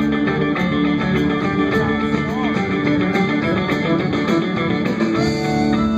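Live band playing an instrumental passage: electric guitars and a bowed fiddle over drums keeping a steady beat.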